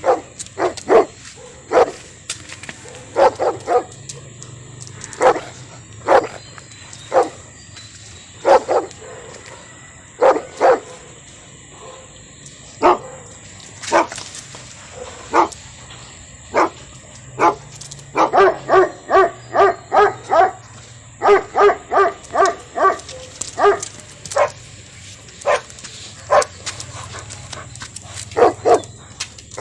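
German shepherd and Phu Quoc ridgeback dogs barking, in single and paired barks, breaking into fast runs of about three barks a second past the midpoint.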